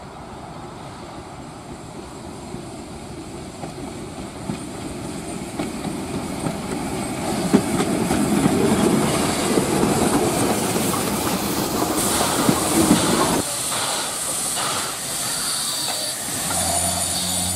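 NSW Z27 class steam locomotive 2705 drawing nearer and running past with its carriages, growing louder, with wheels clattering over the rail joints. Then the locomotive stands with steam hissing.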